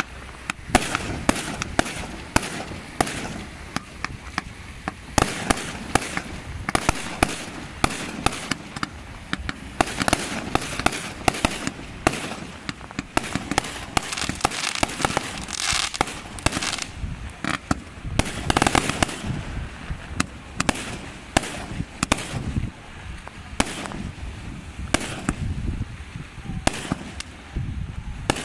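Fireworks display: an unbroken, irregular string of sharp bangs from shells launching and bursting overhead, often more than one a second, over a continuous hissing noise.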